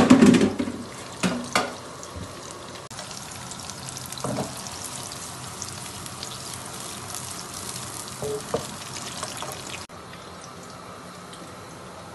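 Desi ghee sizzling in a small frying pan as it heats for a tadka: a steady hiss, with a few utensil knocks. It drops to a quieter hiss near the end.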